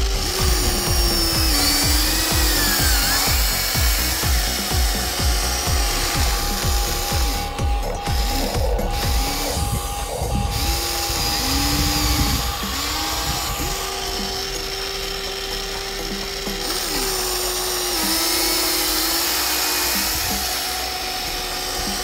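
Electric motors and gearboxes of a Huina remote-control toy excavator whining as its boom and bucket move, the pitch stepping up and down and cutting in and out with each movement. A fast, regular low rattle from the gears runs under it through the first half.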